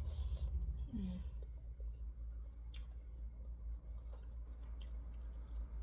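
A person eating a meal: a few faint, sharp clicks and mouth sounds, with a short low murmur about a second in, over a steady low hum.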